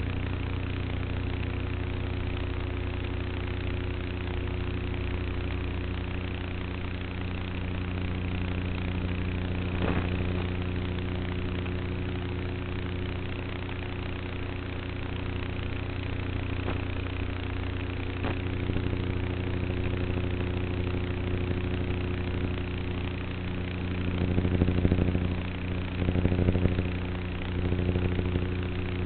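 Electric motor and propeller of an E-flite Apprentice S RC trainer plane in flight: a steady hum that swells in a few louder surges near the end.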